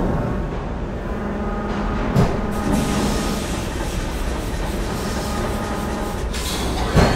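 Steady mechanical rumble and whirring of heavy motorised panels on piston lifts moving, with a clunk about two seconds in and a louder one near the end.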